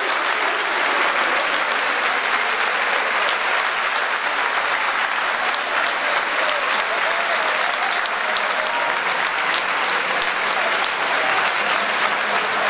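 Audience applauding steadily, an unbroken round of clapping.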